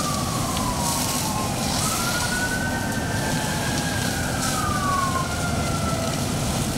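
Emergency vehicle sirens wailing at a distance, two of them overlapping, each pitch sliding slowly up and down, over a steady rushing background noise.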